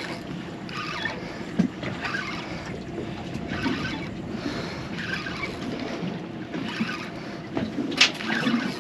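Sea water sloshing and slapping against the hull of a small fishing boat, in soft surges about once a second, with a sharp knock about eight seconds in.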